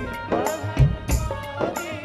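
Live devotional bhajan music: drum strokes keeping a beat under a held, wavering melody line.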